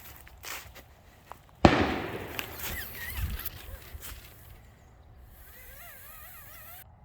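A single shotgun shot about one and a half seconds in, its echo rumbling away over the next couple of seconds. A short wavering call follows near the end.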